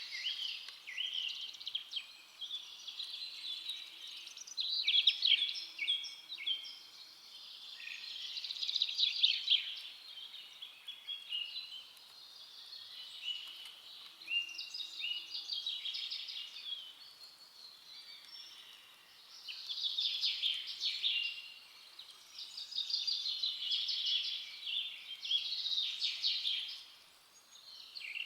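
Songbirds chirping and singing, phrases of rapid high trills and chirps coming in waves every few seconds.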